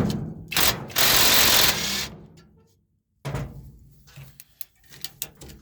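Tool work on a square baler's feeder bar as the hay fork teeth are taken off: metal knocks and clicks, with a loud, steady burst of noise lasting about a second.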